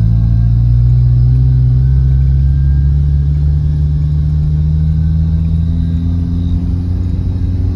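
Car engine and road noise heard from inside the cabin while driving slowly: a steady low hum that drifts only slightly in pitch.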